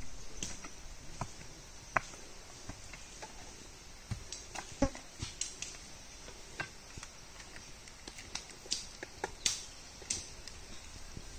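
Pickaxe digging into soil: irregular, scattered knocks and scrapes, the loudest a little before the middle, over a faint steady high hiss.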